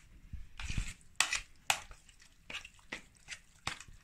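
A utensil stirring a wet mixture of grated zucchini, eggs, cheese and herbs in a bowl: irregular scrapes and taps against the bowl, a few a second.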